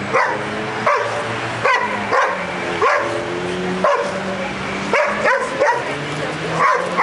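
A dog barking repeatedly, about ten sharp barks at roughly one a second, some coming in quick pairs.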